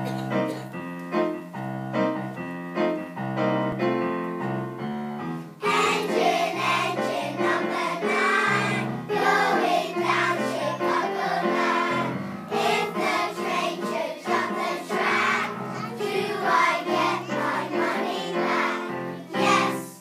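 Piano playing an introduction of repeated chords, then a choir of young children singing together with the piano accompaniment from about six seconds in.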